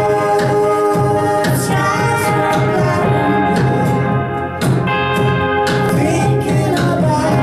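Live band playing an instrumental passage: strummed guitars with long held notes over a steady low beat.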